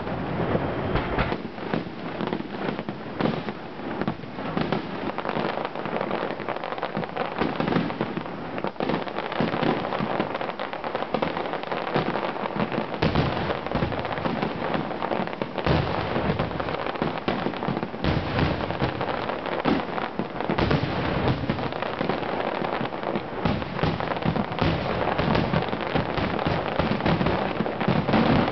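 An aerial fireworks display in a dense, unbroken barrage: shell bursts follow one another rapidly and overlap, with crackling in between.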